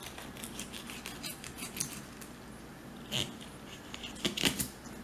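Fillet knife cutting through a mangrove snapper along its backbone toward the tail: a run of small crisp clicks and scrapes, louder about three seconds in and again near the end.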